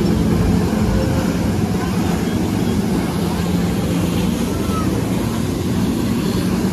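Jet ski engines running steadily to drive flyboard water jets: a continuous engine drone mixed with the rush of water spray.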